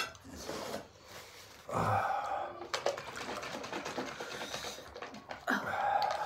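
Someone eating noodles: slurping and chewing, with a rapid run of small clicks and smacks through the middle.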